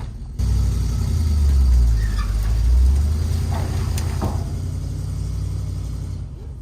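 Mini excavator's diesel engine running steadily. It cuts in abruptly about half a second in, swells louder for a couple of seconds as if under working load, then eases off.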